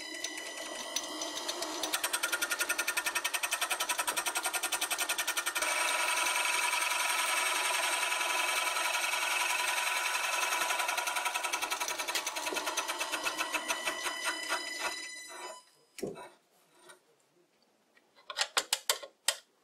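Wood lathe running while a scraper made from a file, held on the cross slide, cuts an out-of-round rowan-wood blank on the faceplate: a fast, even rattle over a steady motor whine, louder from about two seconds in. It stops about fifteen seconds in, and a few light clicks follow near the end.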